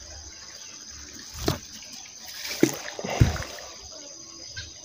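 Neodymium fishing magnet on a rope thrown into a pond, with a couple of short knocks and then the loudest splash about three seconds in. Insects chirr steadily throughout.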